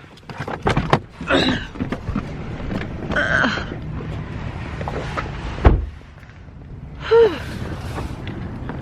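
Clicks and rustling of someone getting out of a parked car, then a car door shutting with a heavy thump about six seconds in, followed shortly by a brief voice-like sound.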